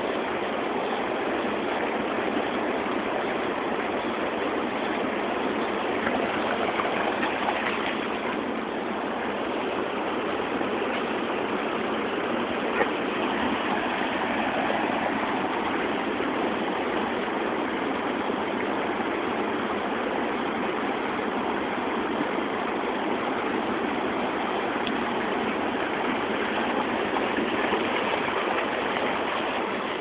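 Steady rush of river water flowing near a waterfall, an even wash of noise throughout. A single short click about thirteen seconds in.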